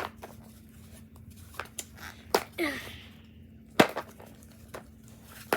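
Plastic product packaging being handled and picked at: scattered sharp clicks and taps, the loudest just under four seconds in, and a brief rustle, over a faint steady hum.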